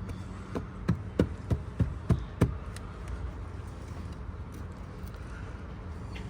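About seven sharp knocks in quick succession, roughly three a second, from a hand tool being struck against the old deck hatch to break its 5200 adhesive seal; after that only a steady low hum.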